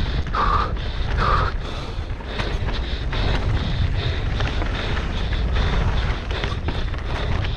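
Mountain bike running fast down a rough downhill trail: wind buffeting the microphone over a low rumble, with the bike rattling and clattering over the rough ground in a stream of quick knocks. Two brief squeaks sound about half a second and a second and a half in.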